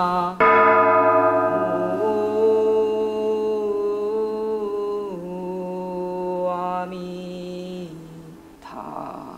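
Korean Buddhist chanting: one voice holds long, steady notes that step to a new pitch every few seconds. About half a second in, a bell is struck and rings out slowly under the voice.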